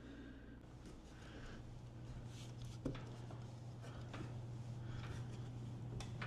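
Air handler blower running with a steady hum that grows gradually louder, with a couple of sharp knocks from climbing into the attic, one about three seconds in and one near the end.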